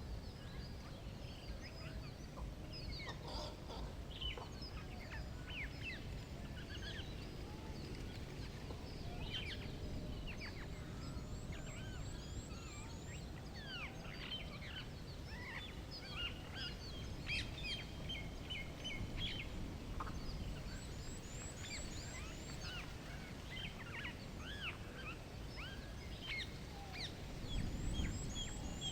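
Several birds chirping and calling, including short whistled chirps and repeated runs of quick high chirps, over a steady low rumble that swells briefly near the end.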